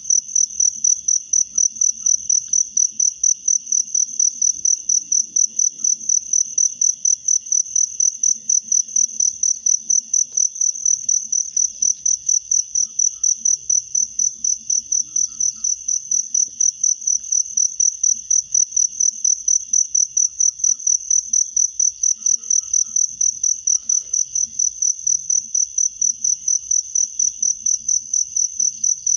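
An insect chirping close by, one high, steady note pulsed evenly at about three chirps a second, with faint low rustling beneath.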